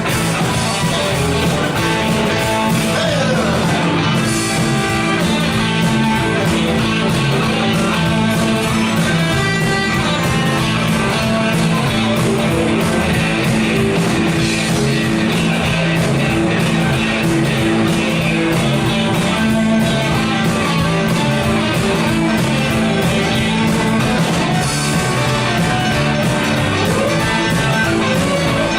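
Live rock band playing a song, with electric guitar prominent.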